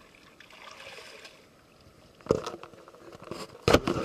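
Water splashing in shallow creek water as a released steelhead goes back into the stream, with two loud splashes, one about two seconds in and one near the end, over a faint hiss.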